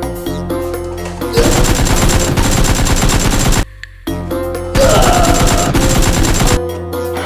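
Two bursts of rapid automatic gunfire, each about two seconds long with a brief break between, over background music with a steady beat.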